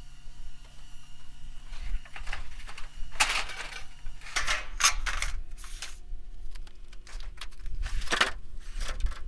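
Sheet-metal roofing panels clanking and rattling as they are handled and stacked, a run of irregular metallic knocks and clatters, some ringing briefly, over a low rumble.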